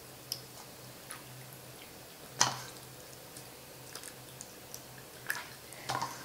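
Homemade borax-and-glue slime (gak) squeezed and pulled apart by hand, making short wet squelches and sticky clicks, the loudest about two and a half seconds in. A faint steady hum lies underneath.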